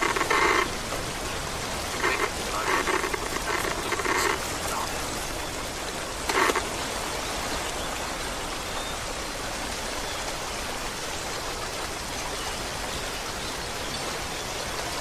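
Steady rushing hiss of flowing water, with a few brief bursts of a voice in the first seven seconds.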